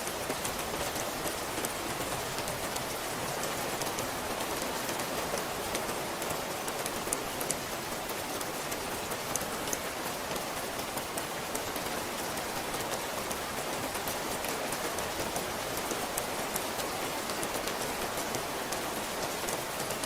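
Steady rain falling on a surface, an even hiss of rain with many small drop ticks through it.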